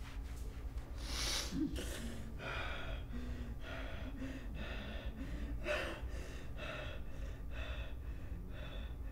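A man crying, with ragged gasping breaths about once a second and faint whimpers between them.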